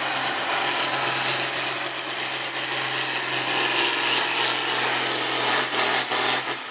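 John Deere farm stock pulling tractor's diesel engine running hard under full load as it drags a weight sled, with a high whine that slowly climbs in pitch. Near the end the engine eases off and the whine starts to fall.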